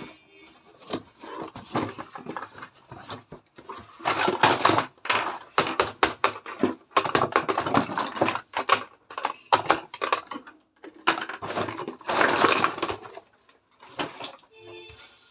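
Plastic toy packaging and pieces being handled: irregular crinkling, rustling and clicking, densest in several bursts of a second or so.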